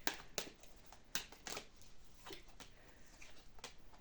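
Tarot cards being handled: a few short, sharp card slaps and rustles as cards are shuffled or laid out.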